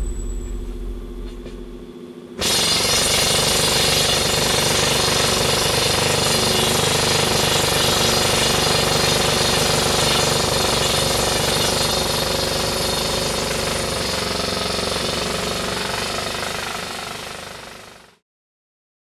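A loud, steady mechanical noise cuts in suddenly about two seconds in, holds evenly, then fades out near the end. A faint low hum dies away before it starts.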